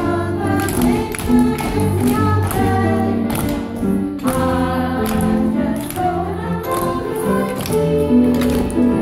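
A song with a group of voices singing over music, with high heels tapping now and then on a wooden stage floor.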